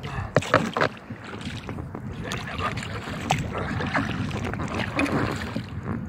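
Kayak paddle strokes splashing in a shallow river current, with several sharp knocks among them. The paddler is working hard against the current.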